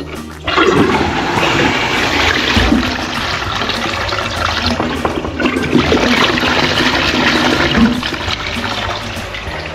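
Back-to-wall toilet being flushed: water from the concealed cistern rushes into the ceramic pan and swirls, starting suddenly about half a second in and easing off near the end. This is a test flush of the newly fitted toilet.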